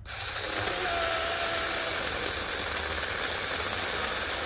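Prodcyc 36V cordless electric mini chainsaw switched on and running steadily, its chain cutting through a shrub branch about two inches thick, the size at which this saw starts getting choked up.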